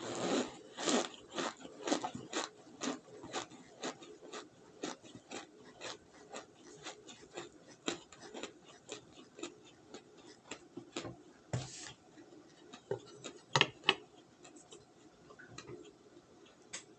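Close-miked chewing of crunchy baked cornstarch, with crisp crunches at about two a second. A louder crunch and two sharp cracks come near the end.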